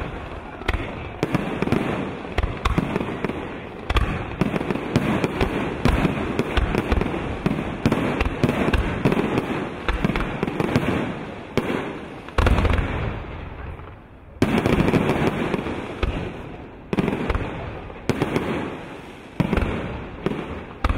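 Aerial fireworks shells bursting in a fast, irregular string of booms and bangs, with crackling between them. A short lull comes about two-thirds of the way in before loud bangs resume.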